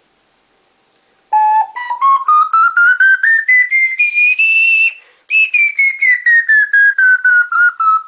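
Songbird 12-hole plastic soprano C ocarina played as a scale of separate short notes: after about a second of quiet it climbs step by step to a held top note, breaks off briefly, then steps back down the scale.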